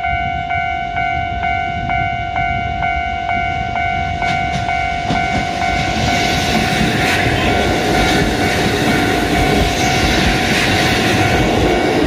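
Level-crossing warning bell ringing in an even beat, a little over two strikes a second. A four-car Kotoden 1200 series electric train approaches and passes close by. From about four seconds in come wheel clicks over the rail joints, then a loud rumble of the cars going past.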